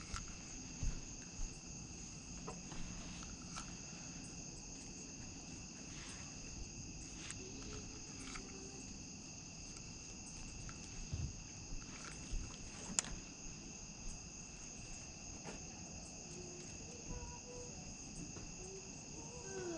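A steady chorus of night insects, crickets or similar, trilling at several fixed high pitches, with a few faint clicks and knocks scattered through it.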